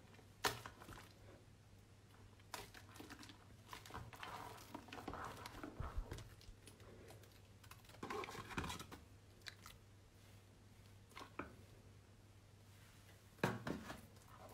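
Fingers squeezing and pressing soaked, mushy bar soap, giving soft wet squishes and small crackles. They come in scattered spells, with the longest about four and eight seconds in.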